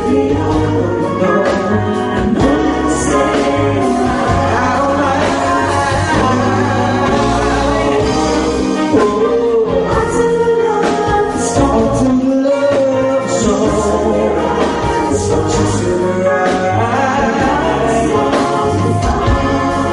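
Music: a love song with singing over instrumental backing and a steady bass.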